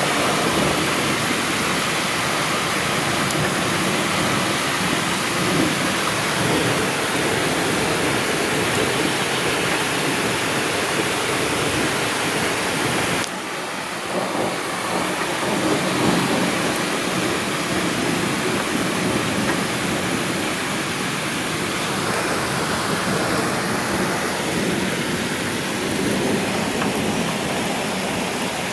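Heavy rain falling steadily in a thunderstorm, a dense even hiss. The sound dips abruptly about halfway through, then carries on.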